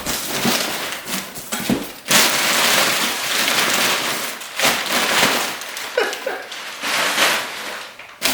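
Rustling and crinkling of packing material as a delivery box is unpacked, with a few sharp knocks.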